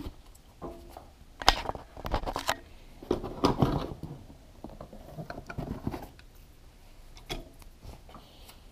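Handling sounds: a sheet of skateboard grip tape and a cardboard box being picked up and moved on a tabletop, with irregular knocks and scrapes, the loudest about a second and a half in and again about three and a half seconds in.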